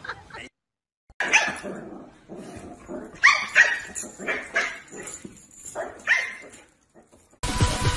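Dogs barking: about half a dozen short, sharp barks and yips spread over several seconds.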